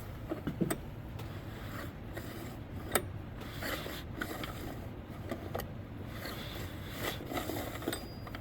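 Rebuilt 1985 Honda TRX125 single-cylinder engine being pulled over slowly by hand, with scattered light clicks and scrapes and no engine firing. It turns over without pulling any felt suction, which after the rebuild raises the worry that the cam timing is off.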